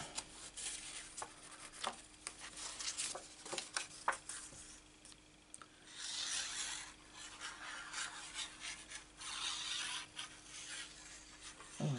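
Paper handling: cardstock being pressed, rubbed and shifted on a craft mat, with small taps and clicks. A liquid glue bottle's tip is drawn along the paper, and there are two louder, hissy scraping stretches about six and nine seconds in.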